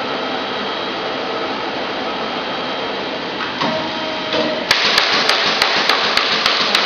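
Semi-automatic hot foil stamping machine running through a stamping cycle with a steady hiss. About two thirds of the way in, the sound suddenly grows louder and an even clicking starts, about four clicks a second.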